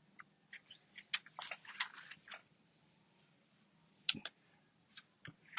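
Faint paper rustles and crackles of catalog pages being turned by hand, a quick run of them in the first couple of seconds, then a sharper single tick about four seconds in.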